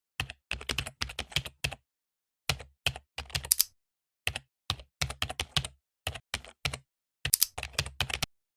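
Computer keyboard typing: quick runs of keystroke clicks with short silent pauses between them, stopping just before the end.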